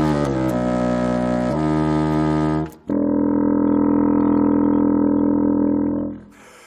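Contrabassoon playing low slurred notes in a legato demonstration: a held note glides smoothly down to a lower one and back up without a break. After a short pause a new long held note follows and fades away near the end.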